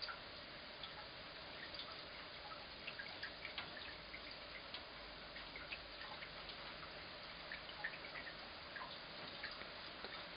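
Wet snow and rain falling: a faint, steady hiss with many small, irregular drips and ticks of drops landing.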